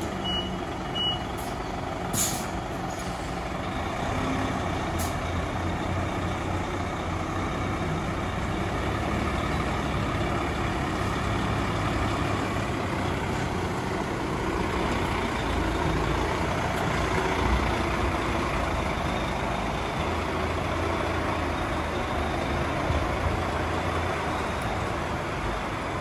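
UD diesel truck-and-trailer engine running steadily as the rig manoeuvres. A few short reversing beeps sound in the first second, and a brief hiss of the air brakes comes about two seconds in.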